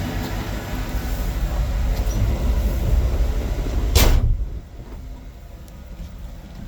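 Chevrolet Vortec 350 V8 running with a low rumble. About four seconds in, the pickup's door shuts with a single slam, and after that the engine sounds much quieter, heard from inside the cab.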